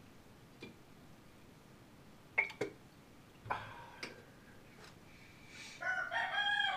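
A few sharp clicks and taps, then near the end a rooster crows once, a pitched call about two seconds long.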